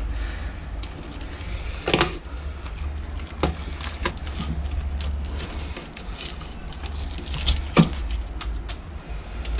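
Scattered clicks and knocks of hands and tools working on an air conditioner's opened unit, the loudest about two seconds in and near the end, over a steady low rumble.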